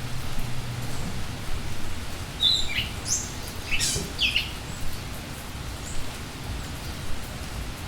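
A few short bird chirps and calls about two and a half to four and a half seconds in, over a steady hiss of background noise.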